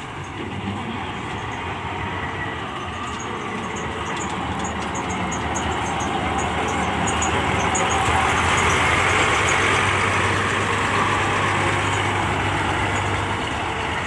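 Malkit 997 combine harvester's diesel engine running steadily as the machine drives along a gravel road, growing louder to about eight seconds in, then carrying on as it moves away.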